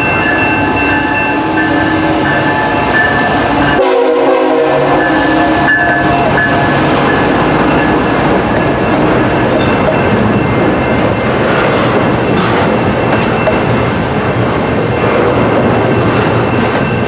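A train horn sounds a chord of several steady notes over the loud rumble of a passing train. The horn dies away about six seconds in, leaving the steady noise of rail cars rolling past with wheels clacking over the rails.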